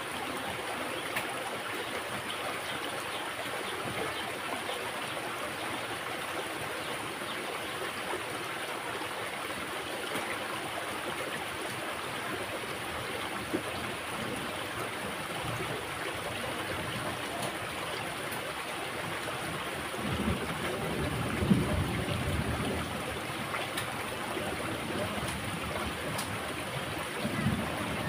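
Small stream running steadily through a narrow stone-lined channel, a continuous rush of flowing water. A brief low rumble about twenty seconds in, and another near the end.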